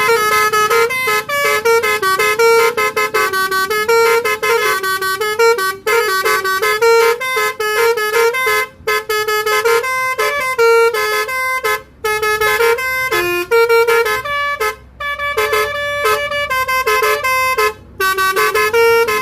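Indonesian telolet horn, a multi-trumpet musical horn on a car, playing a fast tune of short notes. The tune comes in phrases of about three seconds with brief breaks between them, and is repeated throughout.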